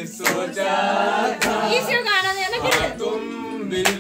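Several people singing together, with a few sharp claps or slaps scattered through it.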